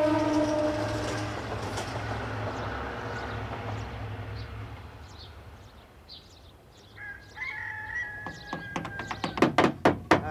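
A rooster crowing at daybreak, then a higher call a few seconds later. Near the end, hammers knock on wooden boards in a quick uneven run of blows.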